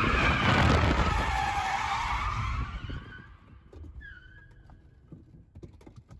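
Tires of an Infiniti G35 coupe squealing through a spin, with the engine running hard underneath. The squeal falls in pitch and fades out about three seconds in as the car comes to rest, followed by a few faint clicks.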